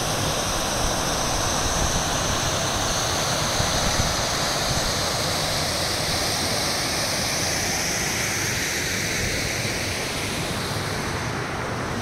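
River water rushing over shallow rocky cascades: a steady, even rushing.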